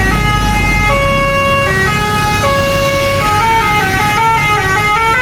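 Bus basuri telolet horn playing a melody: several trumpet tones sound together in held notes that step from pitch to pitch, moving faster in the second half. A low rumble underneath stops about a second and a half in.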